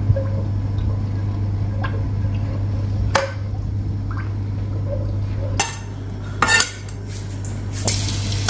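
A metal utensil clinking and knocking against a cooking pot a few times, over a steady low hum, as oil heats in the pot. Near the end the hot oil starts to hiss.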